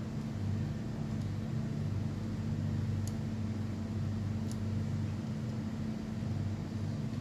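Steady drone of running spinning-mill machinery, with a few faint clicks about three and four and a half seconds in.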